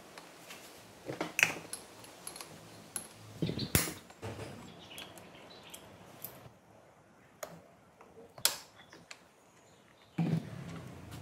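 Scattered metal clinks and knocks of bolts, tools and engine parts being handled on a wooden workbench while a Honda Dio 50cc scooter engine is taken apart, the loudest knock about four seconds in. A denser clattering and rustling starts near the end.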